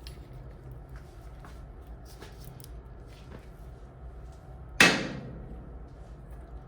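Tools and metal parts being handled at an air handler's belt drive: a few faint small clicks, then one sharp loud knock with a short ring about five seconds in, over a steady low hum.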